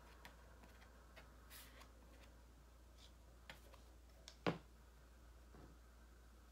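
Mostly near silence: faint light ticks and scrapes of a small stick dabbing chalk paste onto a silkscreen transfer, with one sharper click about four and a half seconds in.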